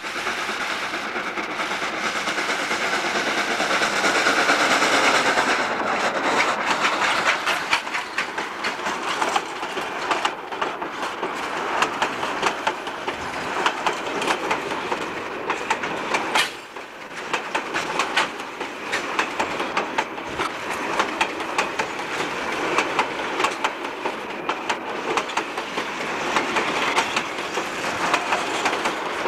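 A Durango & Silverton narrow-gauge steam train passes close by. First comes a dense rush of noise as locomotive 473 goes by, then the passenger coaches roll past with their wheels clicking steadily over the rail joints.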